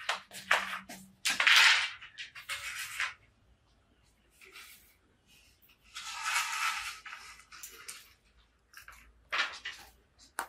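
Bamboo poles scraping and knocking against a tiled floor in several short bursts, the loudest scrape about a second and a half in and another around six seconds in.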